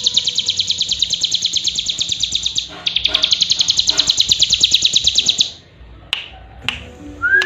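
A young cigun (hill prinia) singing a fast, even trill of high notes, about a dozen a second, with a brief break a little under three seconds in. The trill stops a bit over halfway, leaving a few sharp clicks and a short rising note near the end.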